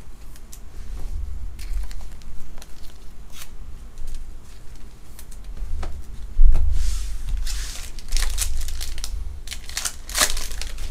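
Foil trading-card pack crinkled and torn open by hand: scattered crackles, then denser bursts of wrapper crackle in the second half, with low bumps from handling.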